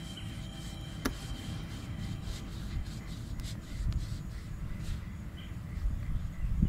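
Paintbrush stroking paint onto a fiberglass boat hull: faint scratchy brush strokes over a low steady rumble, with a single sharp click about a second in.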